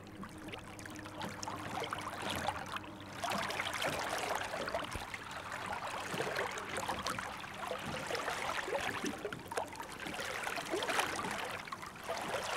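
Running water trickling and splashing: a dense patter of small splashes that gets louder about three seconds in.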